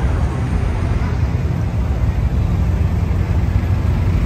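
Steady low rumble of car engines and exhaust from slow-moving cars, with no single pass or rev standing out.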